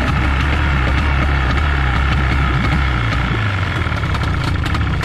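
Speedboat's outboard motor idling steadily while its cooling-water telltale jet splashes onto the water; the stream shows the water pump is circulating cooling water, without which the engine overheats. The low engine note changes about three seconds in.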